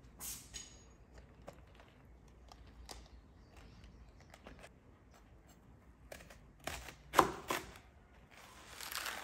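A large kitchen knife cutting through a crisp head of romaine lettuce onto a wooden cutting board: a few sharp crunching chops, the loudest about seven seconds in. The leaves rustle as the head is handled, near the start and again near the end.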